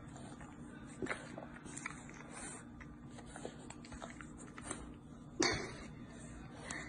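English bulldog snuffling and licking at food on a wooden floor: small wet clicks, smacks and chewing sounds, with one louder sharp knock about five and a half seconds in.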